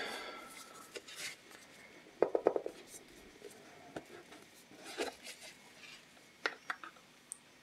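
Faint handling of a rigid cardboard gift box: scattered light taps, rubs and clicks as hands turn the box over and lift off its lid, with a quick run of taps about two seconds in.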